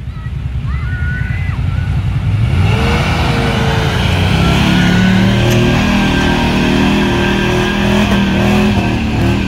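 Pickup truck engine revving hard with its wheels spinning in deep mud. It climbs in pitch and loudness about two to three seconds in, then holds at high revs.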